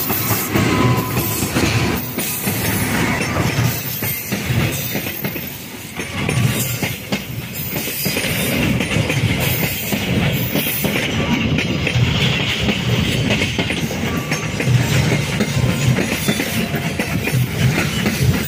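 Train running past on steel rails behind a CC 206 diesel-electric locomotive: the wheels clatter over the rail joints in quick irregular clicks over a steady rumble, which dips briefly about five seconds in.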